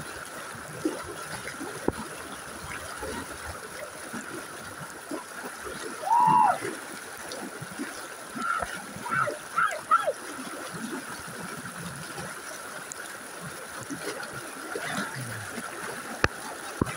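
Fast muddy floodwater rushing and splashing close by, with people floating in the current. A short loud shout comes about six seconds in, and brief distant voices follow around nine to ten seconds.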